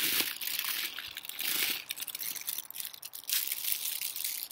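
Thin plastic bag crinkling and rustling as it is handled and bell peppers are pulled out of it, with many quick crackles.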